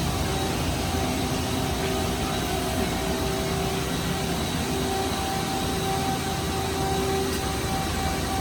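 Mazak QuickTurn Nexus dual-spindle CNC turning center running under power: a steady machine hum with a couple of held whining tones over an even hiss.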